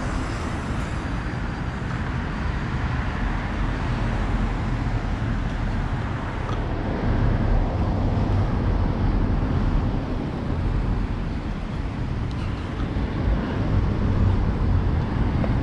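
Road traffic on a multi-lane city street: a steady rumble of car engines and tyres, swelling louder twice as vehicles pass close by.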